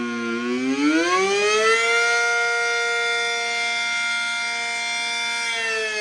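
ACA Super Banshee siren sounding. Its tone dips low, climbs back up over the first two seconds, holds a steady pitch, then begins to wind down again near the end.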